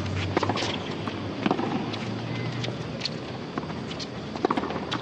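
Tennis rally: a ball struck back and forth with rackets, a series of sharp pocks about every second or so, over a hushed crowd.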